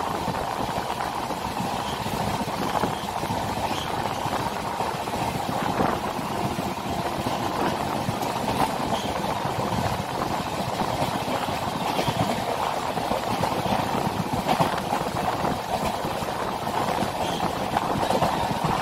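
Express train running, heard from inside a passenger coach: a steady rumble of wheels on rails and coach rattle, with a few scattered knocks.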